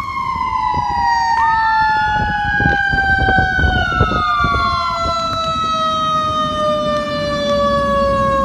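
Fire engine sirens: one long wail falling slowly in pitch throughout, joined by a second siren that rises about a second in and falls away again a few seconds later, over a low engine rumble with a few knocks.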